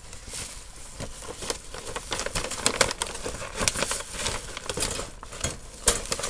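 Paper and tissue paper rustling and crinkling as hands rummage through the contents of a packed backpack, with many sharp crackles, the loudest near the end.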